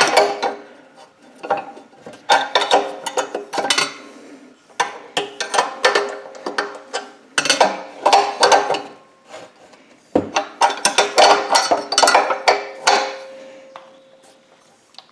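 Steel open-end wrench clinking and ratcheting against the injector fuel-line nut of a 196cc 168F single-cylinder diesel engine in a series of short bursts, as the line is tightened again after bleeding the air out of the injector.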